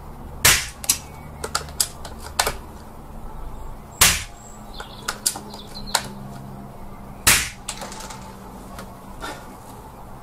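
Three suppressed air-rifle shots through a Chinese fuel-filter type silencer, about three and a half seconds apart, each a sharp crack, with fainter clicks between them.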